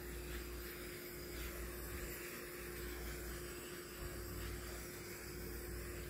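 Handheld butane torch burning with a steady hiss of gas and flame, cut off about six seconds in.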